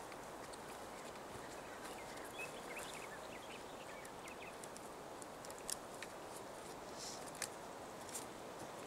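Quiet forest ambience with faint short bird chirps a couple of seconds in. Later come a few light clicks from a collapsible wire-ring net trap being handled and unfolded.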